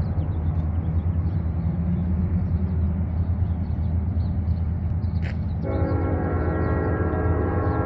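Distant train: a steady low rumble, then about five and a half seconds in a train horn begins a long blast, a chord of several tones.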